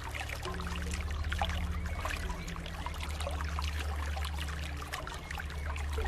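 Water trickling and splashing steadily in many small droplet sounds, like a small stream or running water. Underneath lie low held tones that shift pitch a few times.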